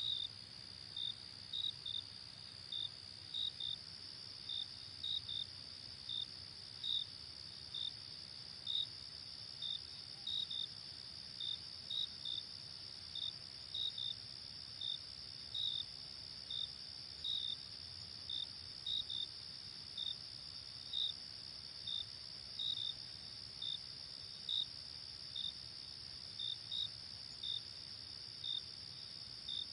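Insects chirping: a steady high trill, over which a louder short chirp repeats about once a second, sometimes in quick pairs.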